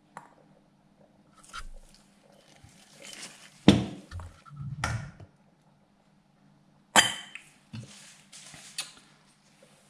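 Stainless steel ladle scraping and knocking against a stainless pot and canning funnel as thick salsa is ladled into a glass jar. Two sharp metal knocks stand out, one about four seconds in and one about seven seconds in.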